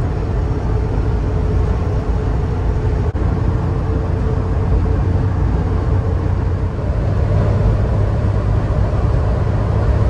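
A car driving along a road: steady engine and tyre rumble, a little louder about seven seconds in.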